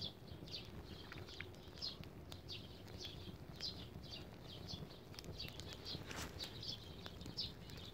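Faint birds chirping, short high calls repeating a few times a second, with an occasional crackle from a small wood fire of twigs burning on a grill.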